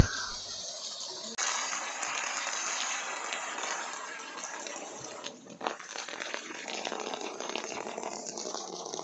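Fresh water gushing and splashing steadily into a shallow fish pond, easing off a little near the end.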